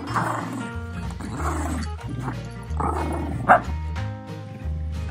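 Shetland sheepdog barking and yipping a few times, the sharpest, loudest yip about three and a half seconds in, over background music with a steady bass line.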